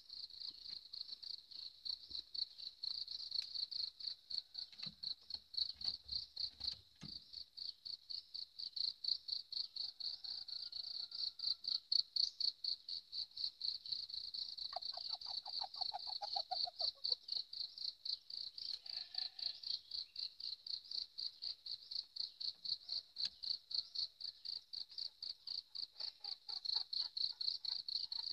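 High-pitched insect chirping, a steady pulsing at about three chirps a second that keeps on without a break. About halfway through, a brief lower trill lasts for around two seconds.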